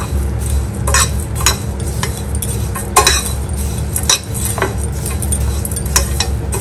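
A steel spoon stirring and scraping through peanuts, coriander seeds and grated coconut dry-roasting in a steel pan, with sharp clinks against the metal about once a second over a steady low hum.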